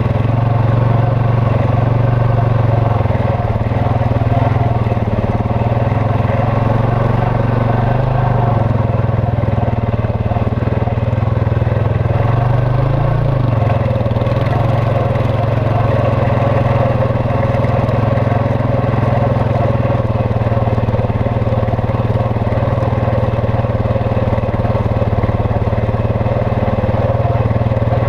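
Quad (ATV) engine running steadily at low speed on a dirt trail, with a brief rise and fall in pitch about halfway through as the throttle is worked.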